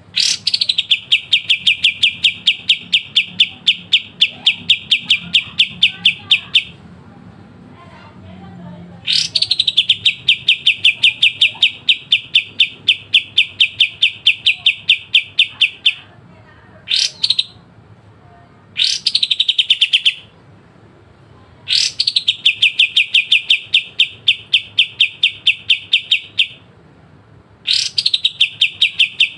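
A kapas tembak songbird singing its sharp, rapid rattling trill (the 'besetan'), about five notes a second, each bout opening with a sharp rising note. There are several bouts of a few seconds each, with short breaks and two brief bursts between them.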